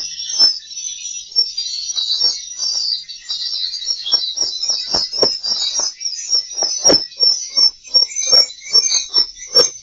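Swiftlet lure sound: dense, continuous high twittering chirps of swiftlets layered with an uneven run of sharp clicks, two or three a second, used as the call and roosting sound to draw swiftlets in and make them stay.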